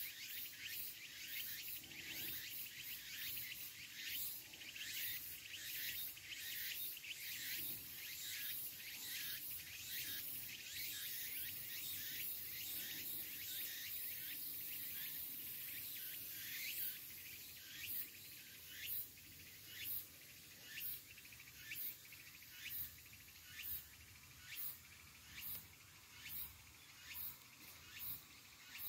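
Tsukutsukuboshi cicadas (Meimuna opalifera) singing: a dense, rapid high-pitched pulsing through the first half, then a phrase repeated evenly about once a second.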